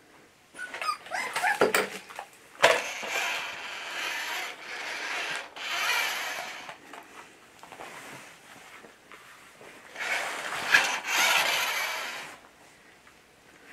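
Toy remote-control car's electric motor and gears whirring in two spells, from about three to seven seconds in and again from about ten to twelve seconds in. A five-week-old American bulldog puppy gives a few short cries near the start.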